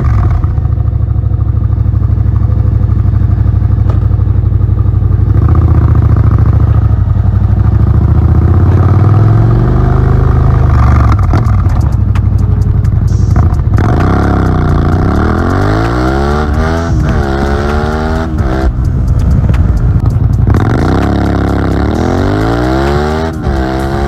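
Suzuki SV650's 645 cc liquid-cooled V-twin running steadily at first, then in the second half accelerating hard, its pitch climbing and dropping back sharply several times as it shifts up through the gears.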